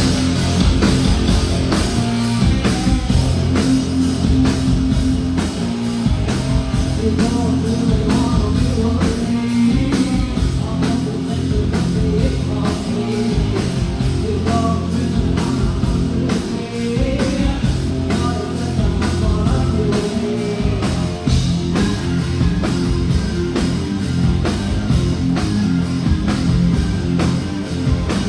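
Live rock band playing loud through a concert PA: distorted electric guitars, bass and a fast, steady drum beat, with a singer.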